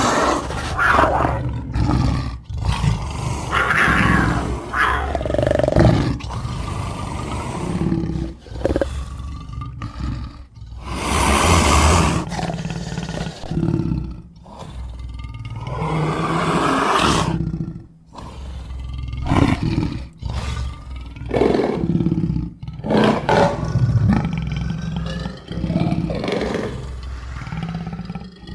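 Big-cat vocal recordings spliced one after another: a series of growls, snarls and roars of varying length, each cut off sharply before the next, with two longer, louder calls in the middle.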